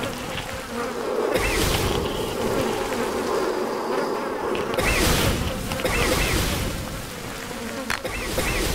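A wavering buzz, strongest in the first half, with several short rushes of noise and a sharp click near the end.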